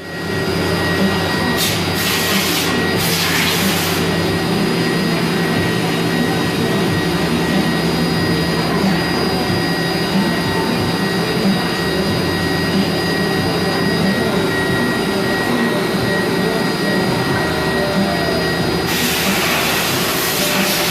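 Mazak Variaxis 500 five-axis CNC vertical mill running: a steady machine hum with several held tones, with bursts of hiss about two seconds in and again near the end.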